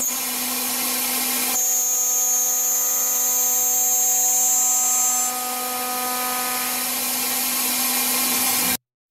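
CNC machining centre spindle milling an aluminium profile with an end mill: a steady machine hum and whine. A high-pitched whine joins in from about one and a half to five seconds in. The sound cuts off abruptly near the end.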